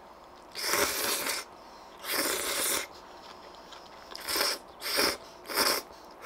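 Kalguksu ramyun noodles being slurped in from chopsticks, five loud slurps: two long ones, then three short ones in quick succession about half a second apart.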